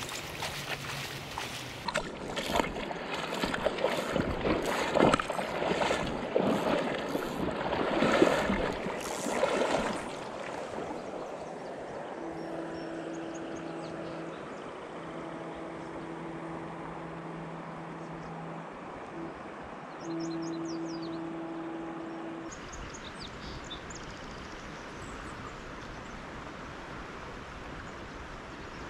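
Legs wading through shallow river water, splashing and sloshing loudly for the first ten seconds or so. The river's flow then carries on as a steady rush. Midway a low steady hum comes and goes for about ten seconds.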